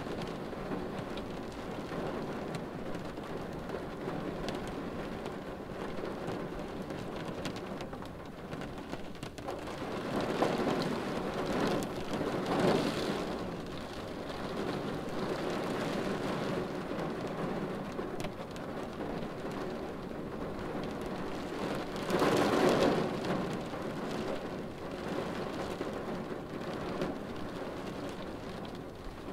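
Steady rain pattering on a car windshield, swelling louder twice, about ten seconds in and again about twenty-two seconds in.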